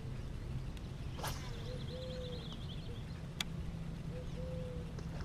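Faint outdoor ambience: birds calling softly a few times over a steady low hum, with two sharp clicks about a second in and past the middle.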